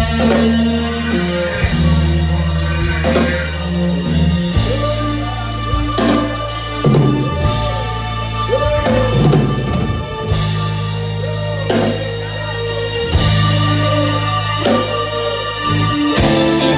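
Live rock band playing an instrumental passage: drums with cymbal hits over long, held low notes, and a lead line whose notes bend up and down in pitch.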